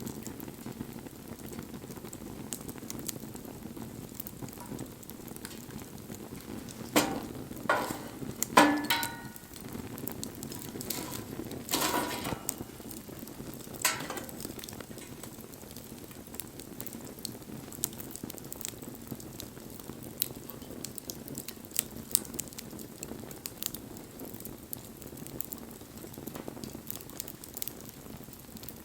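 Wood fire crackling, with a continual scatter of small sharp pops over a low, steady rustle of flames. A handful of louder cracks and knocks come in the first half.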